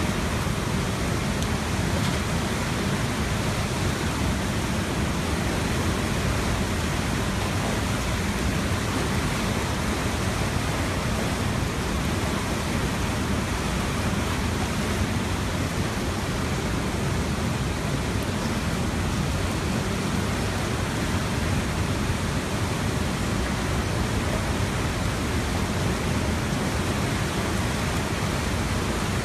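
The Tanaro river in flood after bursting its banks, muddy floodwater rushing across the street and over the railings in a steady, unbroken rush of noise.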